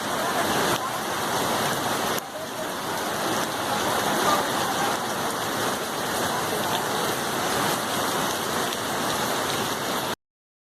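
Steady rushing-water noise of the Itapicuru River in flood, with a small break about two seconds in; it cuts off suddenly near the end.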